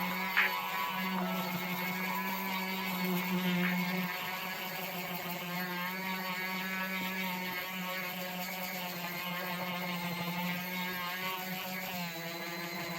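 A power tool's motor running steadily at a fairly constant speed, with a short sharp click about half a second in.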